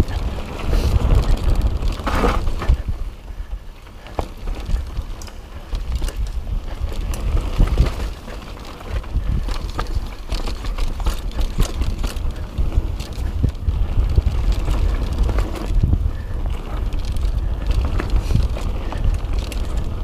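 Mountain bike riding fast down dirt singletrack: wind rumbling on the microphone over tyre noise on dirt, with frequent knocks and rattles from the bike over bumps.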